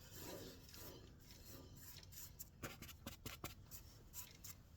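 Faint rubbing and scratching of a cloth wiping excess orange shellac off a turned walnut rosette, with scattered small clicks.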